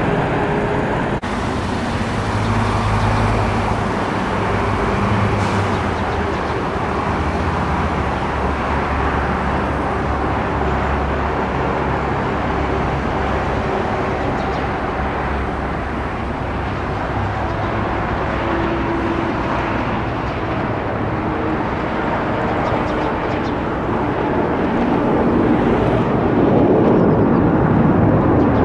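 Twin-engine jet airliners' turbofan engines heard across an airfield: a steady rushing noise over a low drone, with a sudden cut about a second in. It grows louder near the end as a jet climbs out overhead.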